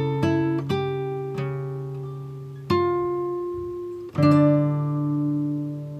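Slow instrumental background music on acoustic guitar: single plucked notes and chords left to ring and die away, a new one every second or so, the strongest about four seconds in.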